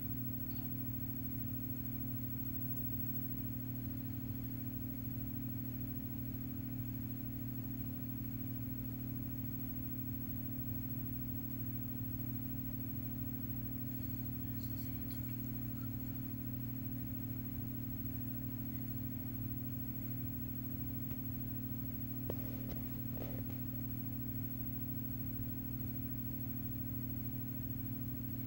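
Steady low electrical hum with a buzzing edge that does not change, and a few faint clicks a little past halfway and again later on.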